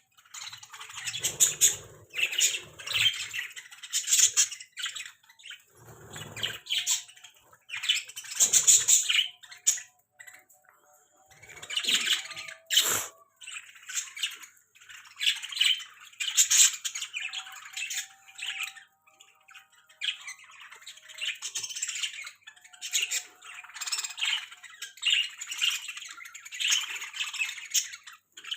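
Budgerigars chattering and squawking in quick, harsh bursts with short pauses, the squabbling calls of budgies jostling over food. A few dull low thumps come in among the calls early on.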